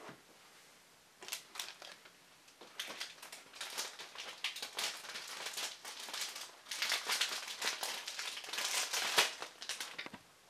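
Stiff clear plastic packaging crinkling and crackling as it is handled and lifted out of a cardboard box, in irregular rustles that start about a second in and grow busier and louder through the second half.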